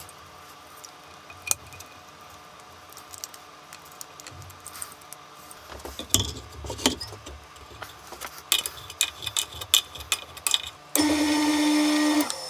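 Scattered clicks, taps and rustles of hands handling wiring and metal parts. Near the end, a loud, steady hum starts suddenly and cuts off about a second and a half later.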